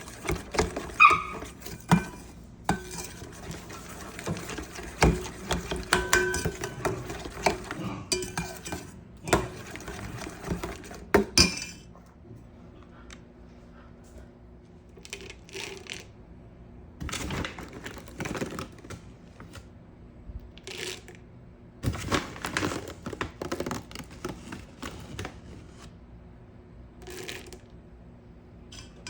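Intermittent clattering, clinking and knocks of household objects being handled, busiest in the first dozen seconds, then sparser.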